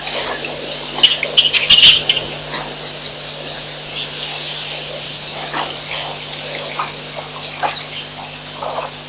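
African elephants drinking at a waterhole: water splashing and dripping from their trunks, loudest in a cluster of splashes between one and two seconds in, over a steady low electrical hum and hiss.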